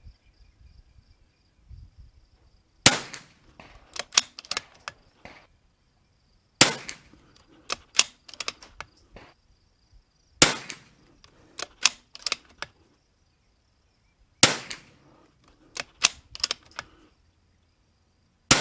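Five shots from a .22 LR RimX bolt-action rifle firing Lapua Center-X, about four seconds apart, each followed by a quick run of metallic clicks as the bolt is worked to chamber the next round.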